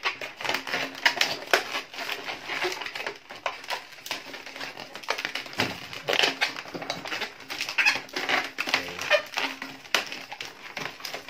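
Long latex modelling balloons squeaking and rubbing as they are twisted and bent by hand, in quick irregular squeaks and creaks.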